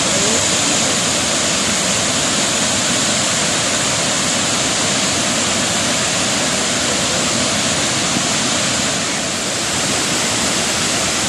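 A full reservoir spilling over a concrete dam's spillway: water pouring through several bays and crashing into the basin below in a loud, steady rush.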